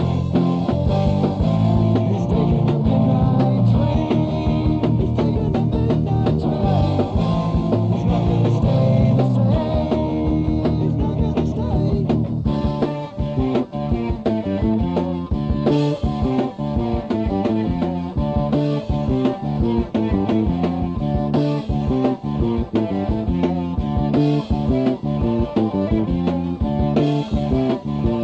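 Early-1980s British heavy metal band playing a song on electric guitars, bass and drums, recorded on a cassette demo with a dull top end. About twelve seconds in, the band shifts from a full, sustained passage to a choppier, stop-start riff.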